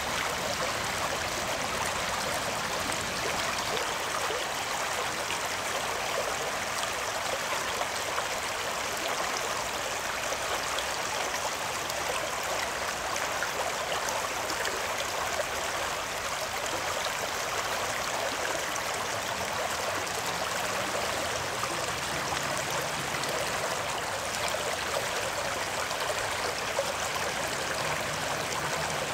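Steady rushing of a shallow stream flowing over stones.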